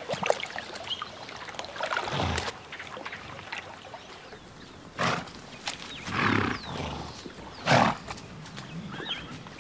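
Four short, breathy animal blasts a second or two apart, each under a second long, over a quiet outdoor background.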